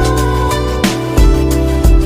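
Background music: sustained instrumental tones over a deep bass with a steady beat.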